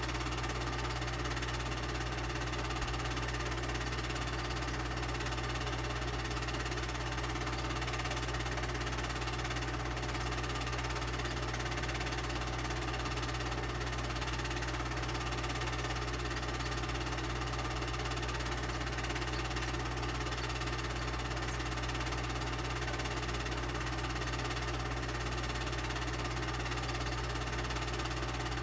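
Film projector running with a steady mechanical hum and a low drone.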